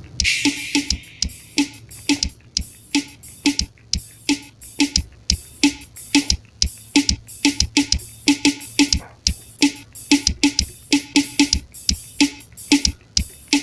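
Real Drum virtual drum kit app with forró drum samples played in a steady groove of kick, snare and cymbal hits, about three to four strokes a second, opening with a cymbal crash. The sound is picked up from the device's speaker, not recorded internally.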